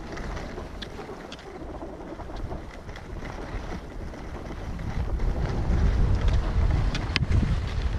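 Wind rushing over the microphone and skis scraping over packed snow on a downhill ski run. The low wind rumble grows louder about five seconds in, and there is a sharp click near the end.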